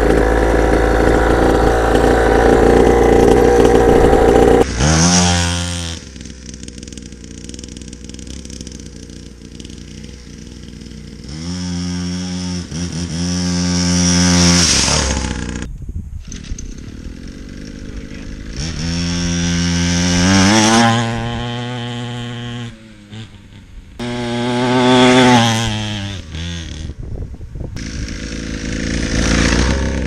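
Small 50cc two-stroke dirt bike engine, first loud and close at high revs for about five seconds, then passing by several times, its buzzing note climbing as it revs and comes near and dropping away as it goes past.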